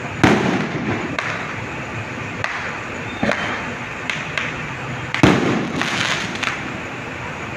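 Fireworks going off in a barrage: two loud bangs, about a quarter second in and about five seconds in, with smaller cracks and pops between them over a steady background of distant crackling.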